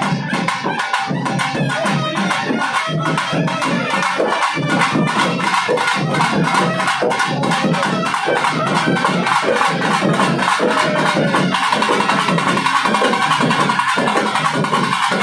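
Loud festival music driven by fast, dense drumming, the strokes coming several times a second. About two-thirds of the way through, a steady high melody line joins the drums.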